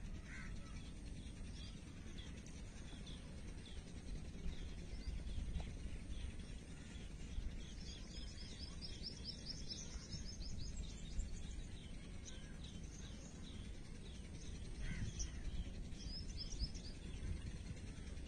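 Outdoor ambience: a steady low rumble of background noise with small birds chirping. A fast run of rapid chirps comes about eight seconds in, and a shorter one near the end.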